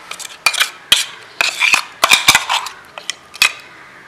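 Stainless-steel mixer-grinder jar clinking and scraping against a glass bowl as green chilli paste is knocked out onto chicken pieces. A quick string of sharp clinks and short scrapes that stops about three and a half seconds in.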